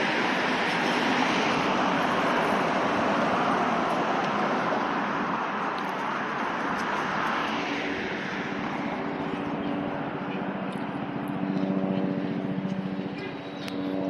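Traffic on a busy highway: a rush of passing vehicles that fades about eight seconds in, giving way to a steadier engine hum with a few pitched tones.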